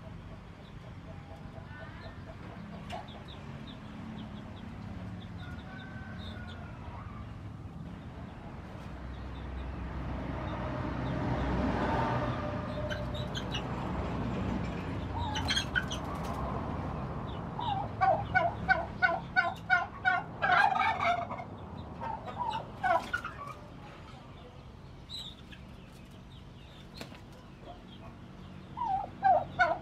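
Domestic turkey tom gobbling: a fast rattling run of notes about two-thirds of the way through, and another gobble starting near the end, with softer short calls in between.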